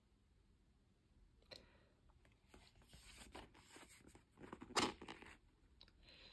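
Faint handling noise of a fold-open card-and-plastic disc case being turned open: light scrapes, rustles and small clicks of cardboard panels and the plastic disc tray, loudest about three-quarters of the way through.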